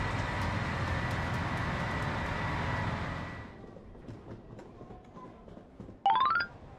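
A diesel train runs steadily at a station platform, a steady rumbling noise with a faint whine, until it cuts to quieter station concourse background about halfway in. Near the end a short, loud run of quickly rising electronic tones sounds.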